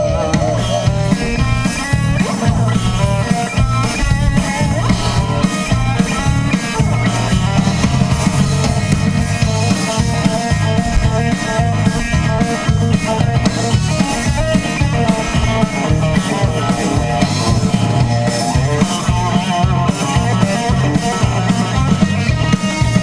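Live rock band playing an instrumental passage on electric guitars, bass guitar and drum kit, amplified through a stage PA.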